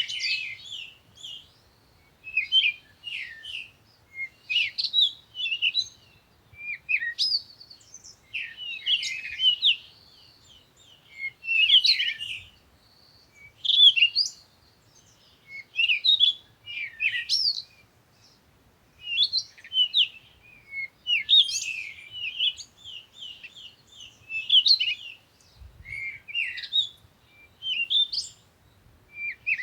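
Songbirds singing: short, quick twittering phrases of high chirps and trills, repeated every second or two.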